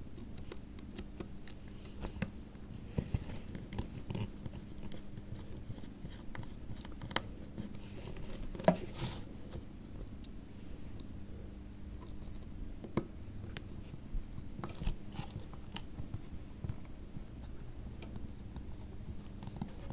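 Scattered small clicks and taps of tools and small parts being handled while a hard disk is reassembled on a workbench, with a sharper click about nine seconds in. A faint steady hum runs underneath.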